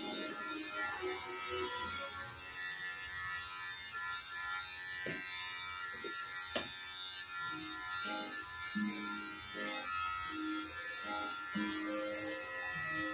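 Electric hair clippers running steadily as they cut hair over a comb, with one sharp click about six and a half seconds in. Faint background music joins from about eight seconds.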